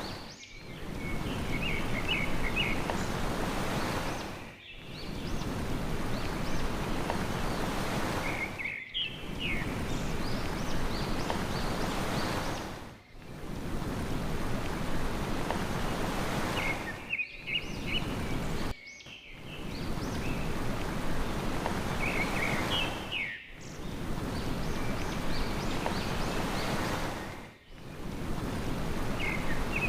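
Sea surf washing steadily, with a short burst of small-bird chirping about every four seconds. The whole pattern, including a brief drop in the wash, repeats at even spacing like a looped recording.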